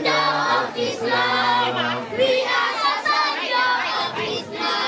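A group of voices, children among them, singing together in chorus.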